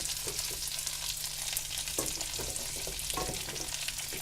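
Butter sizzling and crackling in a cooking pot as prunes, apricots and an orange cook in it, a steady hiss dotted with small pops.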